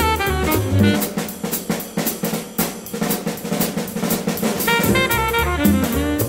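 Jazz drum kit playing a short break on its own, snare and bass drum, then the alto saxophone comes back in about five seconds in.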